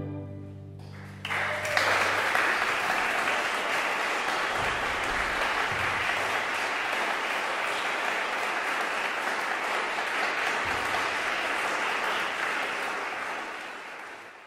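The string quartet's last chord dying away, then audience applause breaking out about a second in, steady, and fading out near the end.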